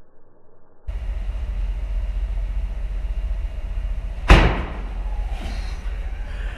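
A single sharp thump about four seconds in as a barrel vortex-ring cannon is fired, over a steady low hum.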